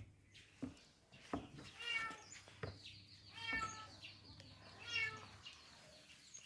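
A cat meowing three times, high-pitched calls about a second and a half apart, with a few soft knocks in between.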